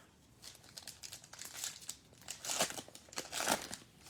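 Crinkling and rustling of trading-card packs and cards being handled, in a run of soft rustles with two louder bursts late on.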